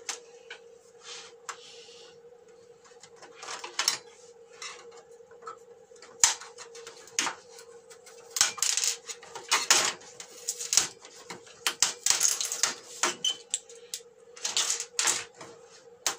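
Old glued LED backlight strips being pried and peeled off a TV's metal backlight tray with a flat metal blade: irregular scraping and sharp clicks of metal on metal, busiest in the second half, over a faint steady hum.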